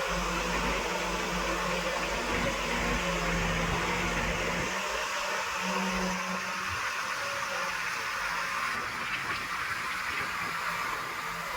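Escorts Digmax backhoe loader's diesel engine running under a steady noise; its low hum drops away about halfway through.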